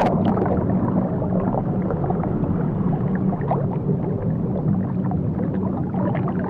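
Water heard from below the surface: a steady, muffled low rumble of churning sea water, with small ticks of bubbles scattered through it.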